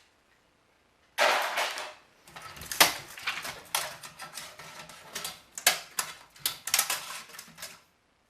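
Plastic and metal parts of a Philips CD-i player being handled and pulled apart during disassembly: a loud scraping burst about a second in, then a run of irregular clicks, knocks and clatter that stops shortly before the end.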